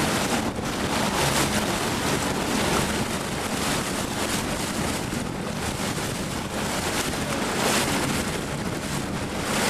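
Strong wind buffeting the microphone in gusts, over water rushing and splashing along the hull of a small sailing dinghy moving through choppy water.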